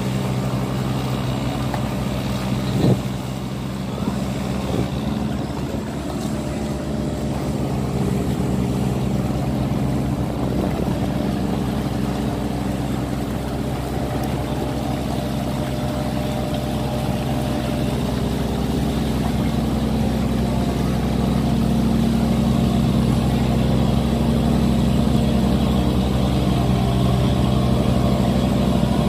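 A loaded cargo barge's diesel engine running hard at a steady pitch, under heavy load as it pushes against the strong current through a sluice gate, growing louder over the last third. A single short knock about three seconds in.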